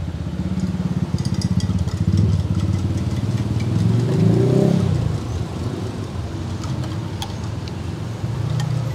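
Street traffic: motorcycle engines running past, one rising and falling in pitch about four seconds in, with light clinks of a metal spoon and fork against a ceramic soup bowl.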